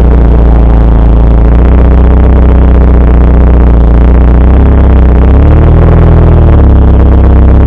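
Mitsubishi Lancer Evolution wagon's turbocharged 4G63 inline-four through an exhaust with the muffler's inner silencer removed, droning steadily at low revs on the move, with a brief rise and fall in revs about five and a half seconds in. The recording is overloaded.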